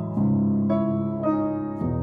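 Piano music: a slow line of notes struck about every half second over held low chords.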